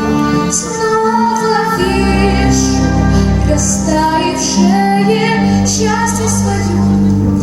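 A female voice singing a slow, tender ballad over a backing track, holding long notes.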